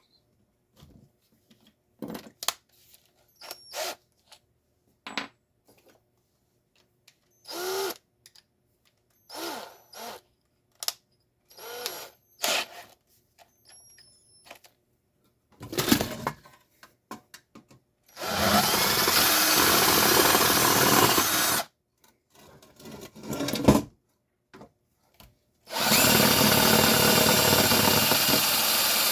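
Power drill drilling out the rivets on a garage door opener's plastic top bracket, in two steady runs of about three seconds each. Light clicks and knocks of the parts being handled come before the drilling.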